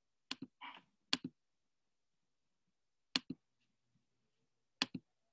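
Faint clicks of a computer mouse: four double clicks, each a press and release in quick succession, spread unevenly across a few seconds.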